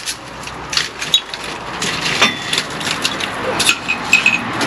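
Brick wall being knocked apart by hand: hammer knocks on brick and mortar, with loosened bricks and rubble clinking and scraping as they come away.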